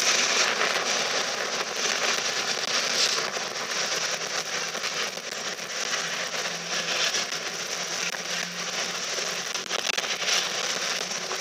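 Container wagons of a freight train passing close by at speed: a steady rush of wheels running on the rails, with a continuous rattle and scattered clicks.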